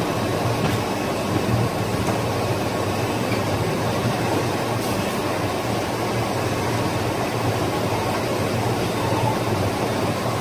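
A 1988 Bobst folder gluer and its stacker running steadily at production speed: an even mechanical hum with a faint high whine.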